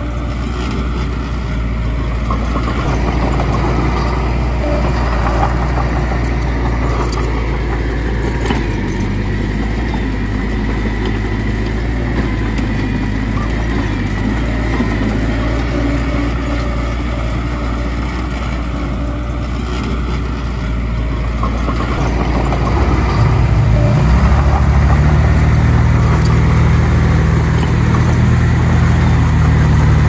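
Diesel engine of heavy earthmoving machinery running steadily, then revving up and getting louder about three-quarters of the way through.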